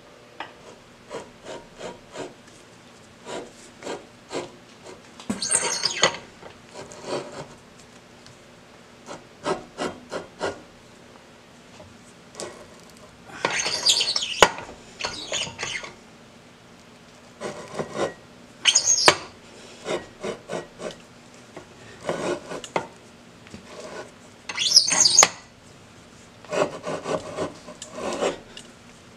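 A keyway broach being forced through a pulley hub by a hand arbor press, its teeth cutting the keyway into the metal. Scattered sharp clicks and several longer rasping scrapes as the teeth bite in turn.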